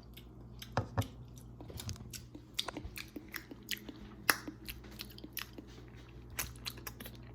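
A person chewing a bite of food, close to the microphone, with irregular sharp clicks and smacks of the mouth.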